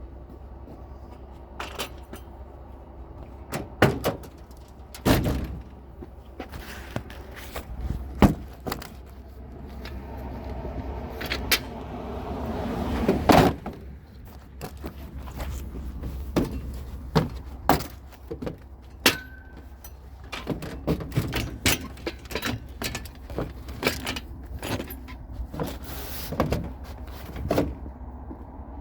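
A vehicle running with a steady low hum, under a long run of irregular knocks, clicks and rattles; a wash of noise builds about ten seconds in and peaks in the loudest knock near the middle.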